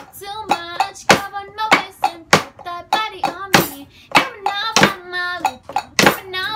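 Voices singing short held notes over a steady beat of sharp, hand-struck hits, about one every half second.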